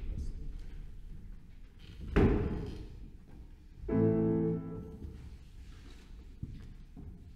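A single knock about two seconds in, then a short grand piano note held for under a second about four seconds in, sounded just before the song begins.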